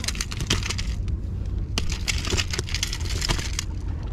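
Sea surf washing over shoreline rocks in hissing surges a second or two long, over a steady low rumble.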